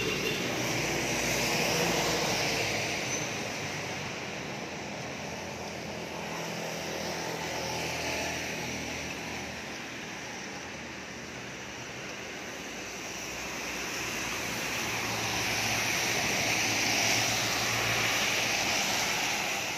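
Road traffic passing on a wet road: engine hum and tyre hiss swell and fade as vehicles go by, loudest about two seconds in and again near the end.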